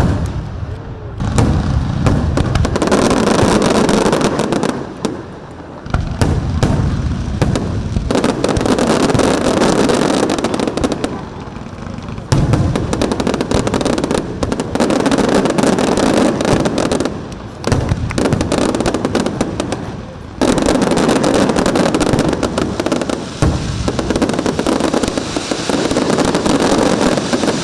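Fireworks display: a dense, continuous run of bangs and crackles that eases off briefly several times.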